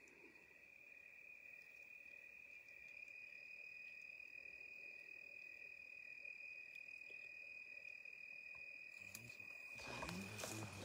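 Crickets trilling faintly and steadily in a continuous high-pitched chirr. Near the end, rustling movement on dry ground cuts in.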